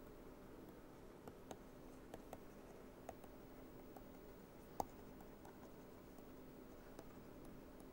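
Near silence with faint scattered taps and clicks of a stylus writing on a pen tablet, the strongest tap about five seconds in, over a faint steady hum.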